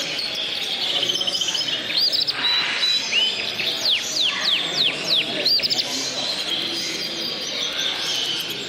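Many caged songbirds chirping and singing at once: overlapping trills and quick calls, with a run of sharp downward-sweeping whistles in the middle.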